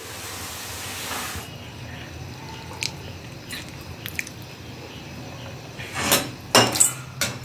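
Nimki frying in hot oil in a steel kadai: a bright, even sizzle for about the first second and a half, then a softer sizzle with a few light ticks. Near the end, a slotted spoon knocks against the pan's metal a few times.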